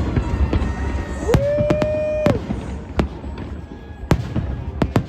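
Fireworks bursting: a run of sharp bangs and cracks over a low rumble. A steady held tone sounds for about a second, from about a second and a half in.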